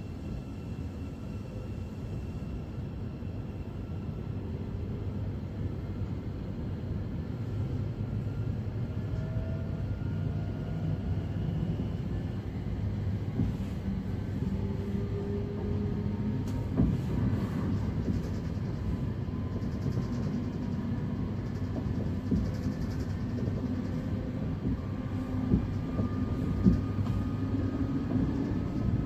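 Class 717 electric multiple unit accelerating from a standstill, heard from inside the carriage: the traction motors' whine glides upward in pitch again and again over a low wheel and track rumble that grows louder as speed builds. A few sharp knocks come in the second half.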